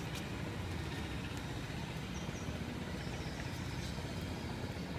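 Steady low outdoor rumble, with a couple of faint short high chirps about halfway through.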